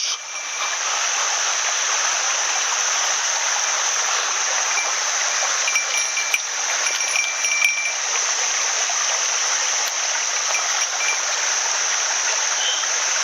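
Small mountain headwater stream rushing steadily over rocks, with a few faint high clicks and thin tones around the middle.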